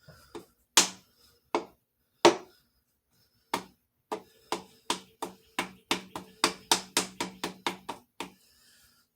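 Hammer taps on a piston being driven into a Jeep 4.0 cylinder bore through a strap-type ring compressor. First come a few scattered knocks, then an even run of about a dozen quicker taps, roughly three a second, each with a short low ring, stopping a little after eight seconds in.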